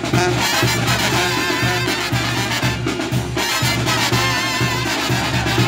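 Lively Latin brass band music with a steady, bouncing beat.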